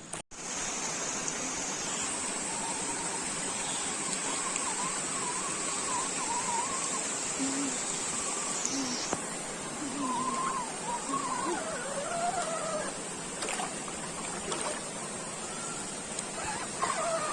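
Steady rush of a jungle stream and waterfall, with a continuous high-pitched insect drone over it and faint distant voices.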